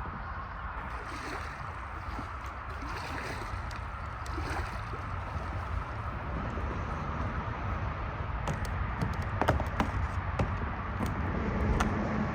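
Water sloshing and lapping around kayaks at the shore, with a few sharp knocks in the last few seconds.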